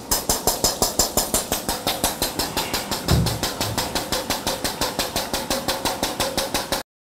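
Air-operated double-diaphragm pump stroking fast, its air valve exhausting in a steady rapid chatter of about five to six knocks a second as it pushes cold ethanol through the PIG filter press. The compressor pressure has just been raised because the filter plates are loaded. The chatter cuts off abruptly just before the end.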